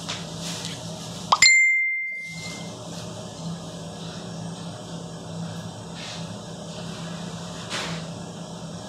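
Steady low machine hum. About one and a half seconds in, a single sharp ding rings out at a clear, high pitch and fades over about a second.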